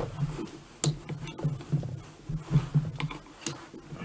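Light clicks and taps of metal engine parts being handled and shifted as a gearbox shaft is worked out of a moped engine's crankcase, with a few sharper knocks about a second in.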